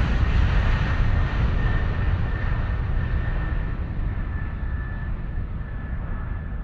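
Steady engine and air noise inside a jet airliner's cabin, gradually fading out.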